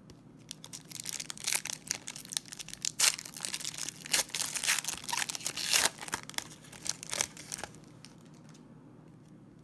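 Foil wrapper of a Panini Contenders basketball card pack being torn open and crinkled by hand, in rapid crackling bursts for about seven seconds before it stops.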